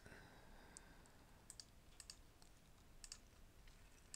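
Near silence with a few faint computer mouse clicks, several of them quick double-clicks.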